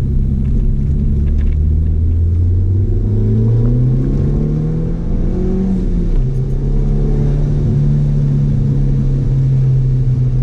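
Audi S3 8L's turbocharged 1.8-litre four-cylinder engine heard from inside the cabin, revs climbing steadily for several seconds under acceleration. It drops at a gear change about six seconds in, then holds steady.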